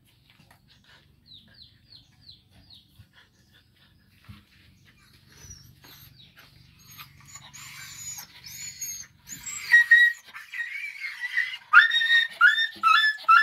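Dog yelping and whining in rough play-wrestling with a monkey: faint short high chirps in the first few seconds, then high-pitched cries growing louder from about halfway, breaking into short repeated yelps about four a second near the end.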